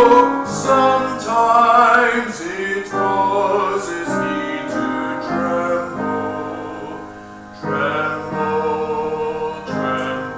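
Slow music: a solo singing voice holding long, wavering notes over instrumental accompaniment, phrase by phrase, with a short lull about seven seconds in.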